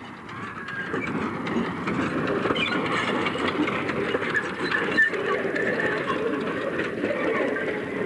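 1929 Kerr Stuart industrial steam locomotive No 4185 running past close by with its train, a steady clatter of many small clicks from the wheels on the track. The sound fades in over the first second or so.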